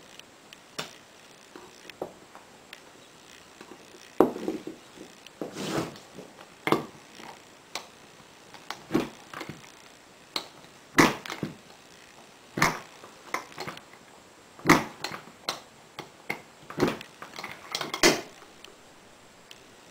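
Small bench-mounted lever press and metal loading parts being handled while loading blocks for a .32 Patriot Pistol: a string of sharp clicks and clunks at irregular intervals, more frequent and louder in the second half.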